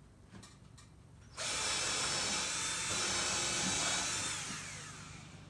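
Cordless drill boring into a plywood wall sheet. It starts suddenly about a second and a half in, runs steadily for about three seconds, then winds down with a falling whine.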